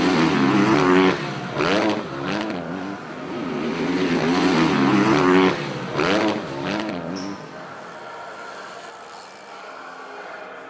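A car engine revving hard twice, each rev climbing and then dropping off with a few sharp pops, before settling to a quieter steady sound. It is likely a sound effect laid over the video.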